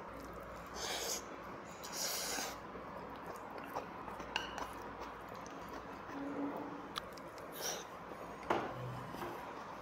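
Eating noodles from a ceramic bowl with chopsticks: a few short slurps of jjajangmyeon noodles, with scattered clicks of the chopsticks against the bowl.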